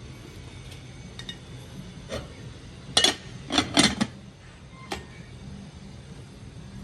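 Dishes and utensils clinking and knocking: scattered light clicks, then a cluster of about four sharp clinks three to four seconds in and one more a second later, over a steady low hum.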